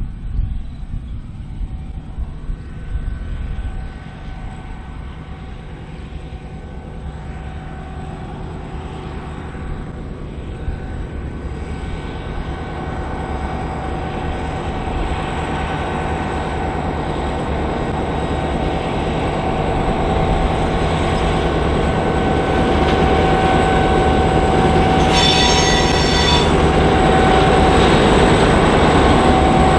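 G-class diesel-electric locomotive hauling a loaded aggregates train, its engine drone growing steadily louder as it approaches and passes. A brief high squeal comes near the end.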